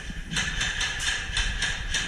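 Footsteps at a walking pace on rough ground, about three steps a second, each a short crunch.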